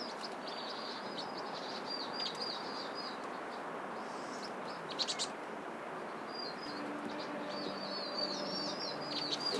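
Small birds chirping in quick high trills, in two runs with a pause between, over a steady background hiss, with a few sharp clicks in the middle.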